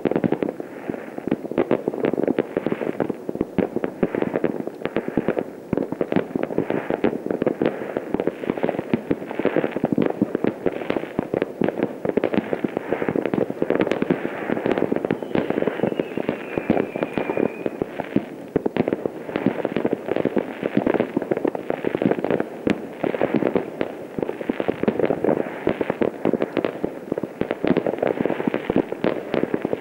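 Many distant fireworks going off at once across a town: a continuous dense crackle of bangs and pops with no pause. A faint whistle falling in pitch passes about halfway through.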